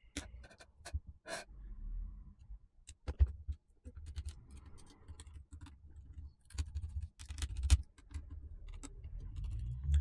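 Irregular small clicks and taps of metal parts and a screwdriver being handled as a laptop's copper CPU heatsink is set in place and screwed down.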